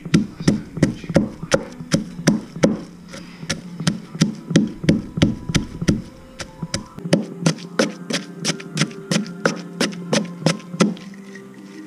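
Wooden pestle pounding chilies and garlic in a clay mortar: steady knocks about three a second, with a couple of brief pauses.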